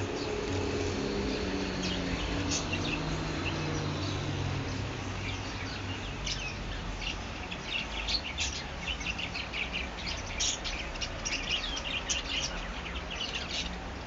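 Caged budgerigars chirping and twittering, a flurry of short high calls throughout. A low hum lies underneath in the first few seconds.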